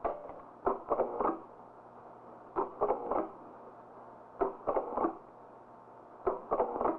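Mechanical clicking in short bursts of three or four sharp clicks, repeating at an even pace about every two seconds.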